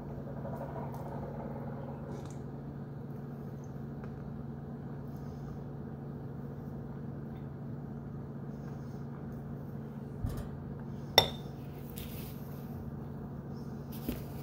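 Metal spoon scraping and clinking in a white ceramic bowl while someone eats, over a steady low hum. A single sharp clink with a brief ring about eleven seconds in is the loudest sound, just after a dull knock.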